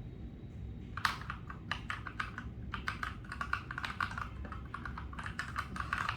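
Typing on an Akko 3068 Silent mechanical keyboard: a fast, uneven run of key clicks that starts about a second in.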